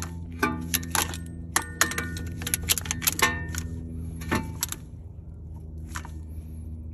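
Sharp metallic clicks and clinks of a hand-squeezed brake caliper piston press tool working against a double-piston front brake caliper, pushing the pistons back: a quick irregular run of clicks over the first three seconds or so, a few more a second later, and a last one near the end. A steady low hum runs underneath.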